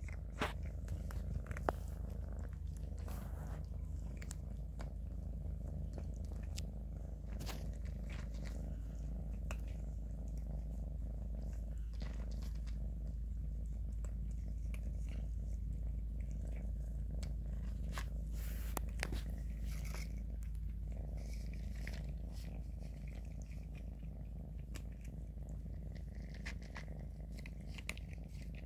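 Kitten purring steadily, close to the microphone, with scattered crisp clicks of dry kibble being crunched.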